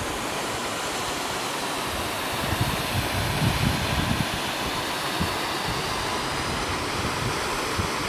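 Steady rushing of the Pozo de los Humos waterfall, with wind buffeting the microphone now and then.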